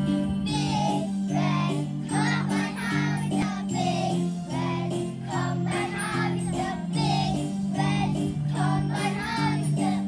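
A children's song playing: steady backing music with singing voices, the singing coming in about half a second in.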